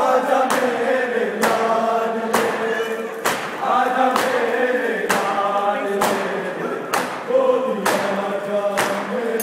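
Men chanting a noha (mourning lament) together in unison while beating their chests in matam, a sharp collective slap landing steadily about once a second under the sung lines.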